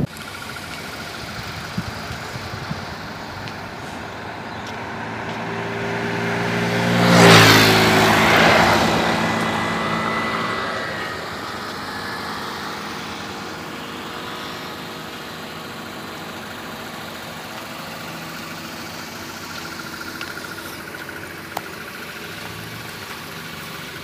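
A road vehicle passes close by, growing louder for about three seconds to a peak about seven seconds in, its engine note dropping in pitch as it goes by, then fading. Under it runs a steady road and engine rumble.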